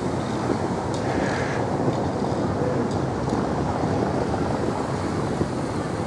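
Wind buffeting the microphone: a steady, uneven low rumble over faint street ambience.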